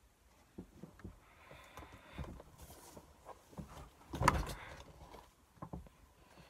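Scattered soft thumps and rustles of a person moving about and sitting down close to the microphone, with the loudest thump about four seconds in.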